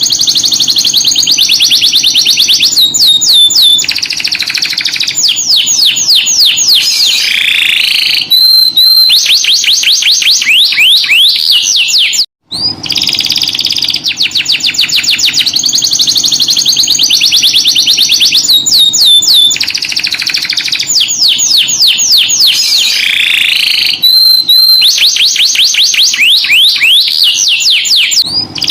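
Canary singing a long, high-pitched song of fast rolling trills and whistled notes. It breaks off briefly about twelve seconds in, and the same song phrase then runs again.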